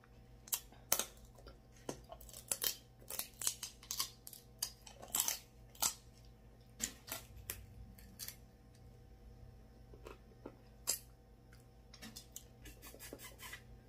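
Snow crab leg shells cracking and snapping as they are broken open by hand. A rapid, irregular run of sharp cracks and clicks thins out after about eight seconds, with one more loud crack a few seconds later.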